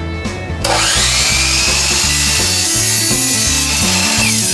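DeWalt sliding miter saw starting up about half a second in, its motor whine rising and then holding steady as the blade cuts through PVC pipe. Near the end the trigger is let go and the whine starts to fall as the blade spins down.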